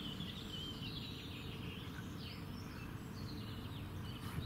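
Small birds chirping over a steady low outdoor background noise.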